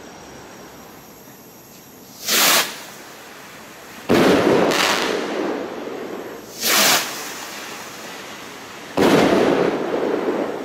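Two Funke star rockets (15 g composition each) fired one after another. Each goes up with a short whoosh, and about two seconds later its star burst opens with a sudden bang that dies away.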